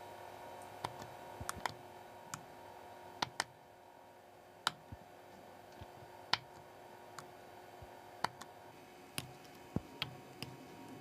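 Sharp, irregular clicks of a small steel hand tool cutting and setting into a platinum watch case, about one or two a second, over a faint steady hum.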